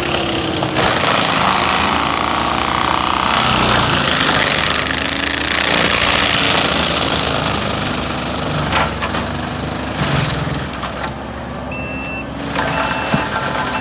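Kubota skid steer's diesel engine working hard while its forestry mulcher head shreds brush and wood. Near the end its backup alarm beeps about once a second as it reverses.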